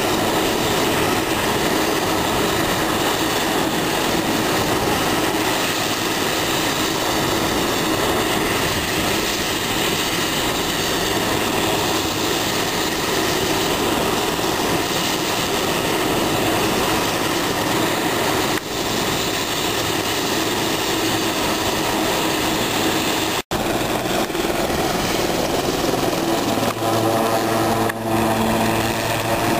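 Turbine helicopter running on the ground with its rotors turning: a steady, loud engine and rotor noise. It breaks off for an instant about three-quarters of the way through. Near the end a steady low hum comes in under it.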